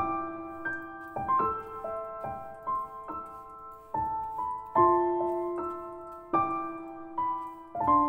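Background piano music: a slow melody of notes and chords, each struck and left to ring and fade.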